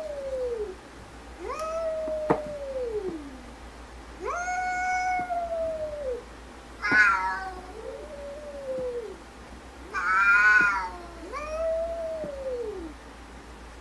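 Two domestic cats trading long, drawn-out meows back and forth, about seven calls in all, each sliding down in pitch at its end. Two louder, higher yowls come about halfway through and near the end.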